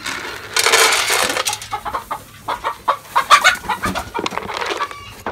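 Agitated hens squawking and clucking, with a loud rustling rush about half a second in and a flurry of short squawks and clatter around three seconds in.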